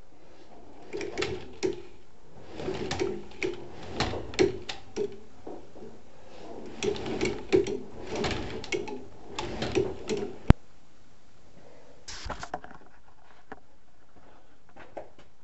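Spools of electrical wire being handled and hung up: irregular rustling, scraping and light knocks for about ten seconds, ending in one sharp click, then a brief clatter.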